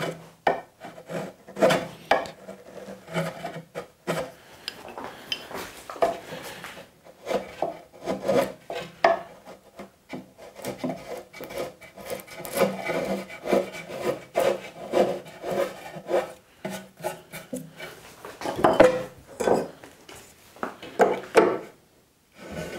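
Bench chisel paring thin shavings from the edge of a softwood board by hand, in a long run of short, uneven scraping strokes. It is cleaning away the last few small bumps to bring the surface flat.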